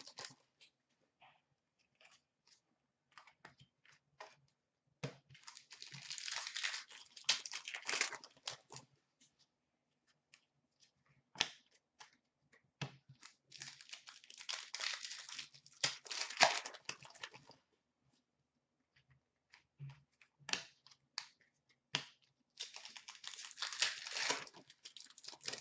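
Hockey card pack wrappers crinkling and tearing as packs are ripped open, in three bursts. Light clicks and snaps of cards being handled come between the bursts.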